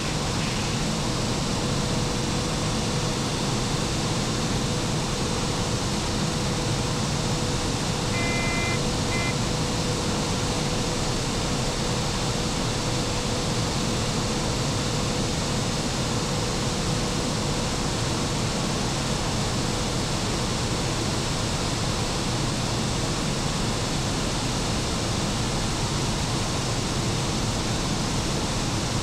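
Machine room of the E94 088 electric locomotive under way: an even rushing noise of running machinery with a steady hum underneath. A short, faint high double tone sounds about eight seconds in.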